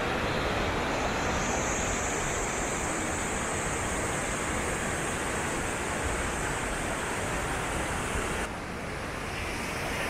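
Rushing water of the Bow River, a steady wash of noise. About eight and a half seconds in it abruptly turns a little quieter.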